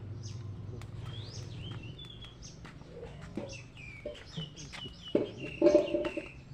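Birds chirping with short rising and falling calls, and a louder, lower call about five seconds in, over a steady low hum.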